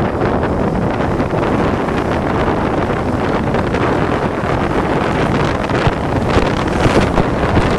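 Wind rushing and buffeting over a phone's microphone on a moving vehicle, with vehicle noise beneath, gusting harder near the end.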